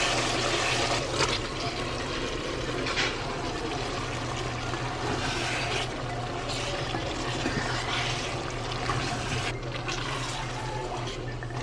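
Ground-spice paste and then beef pieces sizzling as they are fried down in oil in a pot for a beef curry, with the odd scrape of a wooden spatula. A steady low hum runs underneath.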